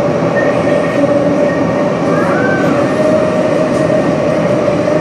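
MTR C-Train metro car running, heard from inside the car: a steady rumble of wheels and running gear with a steady mid-pitched whine over it.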